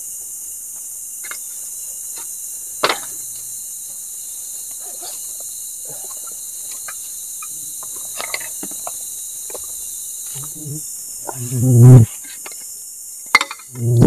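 Steady high hiss of a forest insect chorus, with a few sharp clicks and knocks of camping gear being handled. A brief, loud burst of a man's voice comes near the end.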